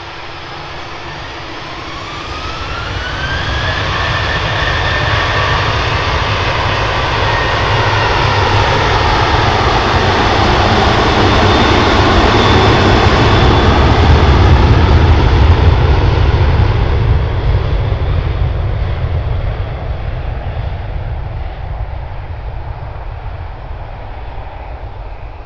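Boeing 737 jet engines spooling up to take-off thrust, with whining tones that rise in pitch a couple of seconds in. Then comes the loud, low rumble of the take-off run, building to a peak a little past halfway and fading as the jet moves off down the runway.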